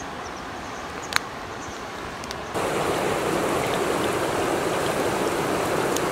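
River water flowing steadily, suddenly louder about two and a half seconds in, with a single sharp click about a second in.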